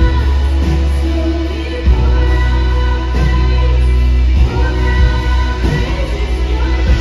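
Live worship band playing: singers over electric and acoustic guitars, keyboard, drums and heavy bass, with a steady drum beat.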